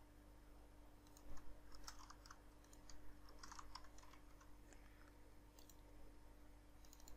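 Faint computer keyboard keystrokes and mouse clicks, a few scattered taps, over a low steady hum.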